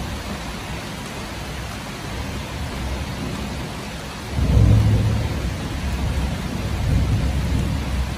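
Heavy rain hissing steadily. About four seconds in, a low rumble of thunder breaks in suddenly and rolls on, swelling again near the end.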